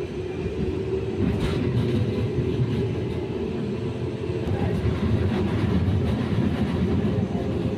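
Tram in motion heard from inside the car: a steady low rolling rumble with a few light clicks and rattles.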